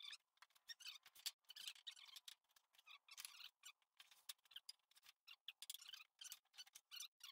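Faint, irregular scraping and rustling of thin wooden boards and cardboard being handled and sorted.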